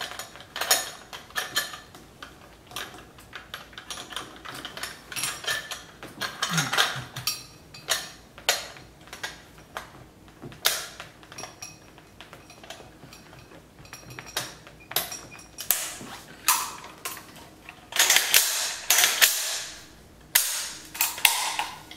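Chinese Type 56 SKS carbine being handled and put back together: repeated sharp metallic clicks and clacks of its steel action parts. A run of louder clacks comes in the last few seconds.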